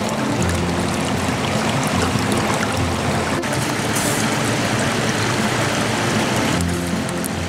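Water washing against a rocky shore, a steady rushing hiss, with low background music underneath.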